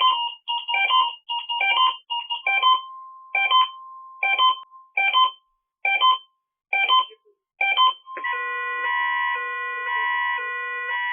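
Synthesized electronic keyboard music: a run of short, ringtone-like notes that space out to under one a second. About eight seconds in it changes to sustained steady electronic tones, with lower and higher notes alternating about twice a second.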